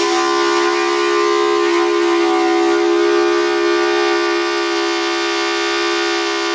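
Outdoor tornado warning siren sounding a steady tone: two close pitches sounding together as a chord, held level throughout.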